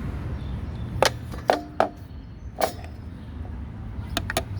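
A handful of sharp knocks and clicks, a couple with a short ring, over a steady low rumble.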